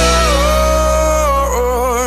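Pop-rock song with one long held sung note that begins to waver in vibrato about halfway through, over a sustained low chord.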